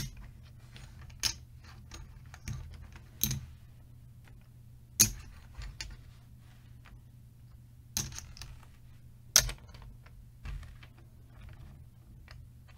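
Casino chips clicking and clacking as they are picked up, stacked and counted by hand. A few sharp clacks come every second or two, with lighter ticks between.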